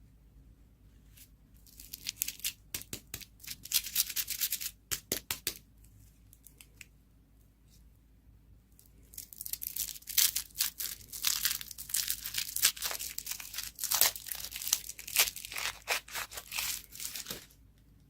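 Crinkly wrapper on a candy or surprise toy being torn open and crumpled by hand, in two spells with a pause between them.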